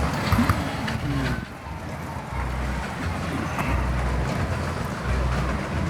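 A motor engine running at low speed: a steady low rumble that swells and eases every second or so, with a few light clicks over it.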